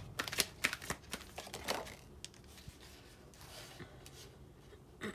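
Tarot cards being handled and shuffled by hand, a run of quick crisp clicks and snaps in the first two seconds, then softer rustling as a card is drawn and laid down.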